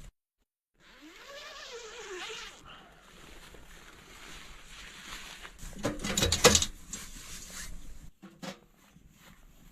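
A dog whining: one short whimper that rises in pitch and then falls. About five seconds later comes a loud burst of rapid knocks.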